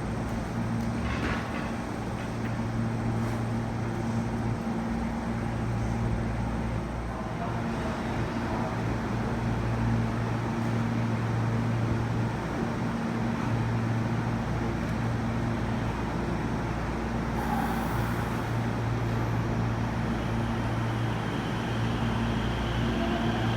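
Inside a JR West 207 series electric train while it runs: a steady rumble with a low hum that cuts out and comes back every few seconds.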